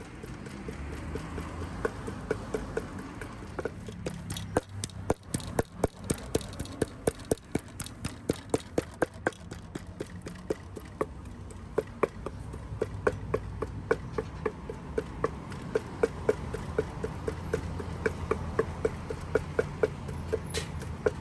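Pestle pounding papaya salad in a mortar: sharp rhythmic knocks with a short ring, sparse at first, then steady at about two to three strokes a second from about four seconds in.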